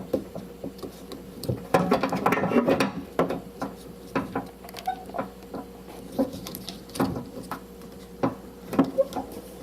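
Irregular clicks and light knocks of plastic parts being handled while the keeper clips on a car door security keypad are loosened, with a busier stretch about two seconds in.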